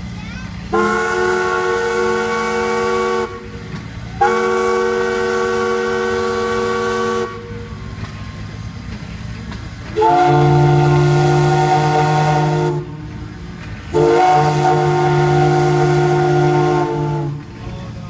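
Steam whistles blowing four long blasts, each about three seconds long, sounding a chord of several steady tones. A steady low hum runs underneath between the blasts.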